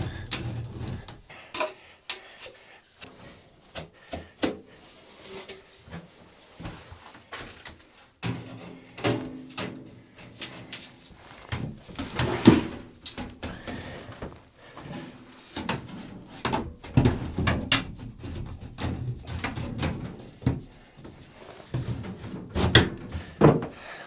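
Irregular knocks, clunks and rattles of camping gear and stove parts being handled inside the small plywood cabin, with a sharp louder knock about midway.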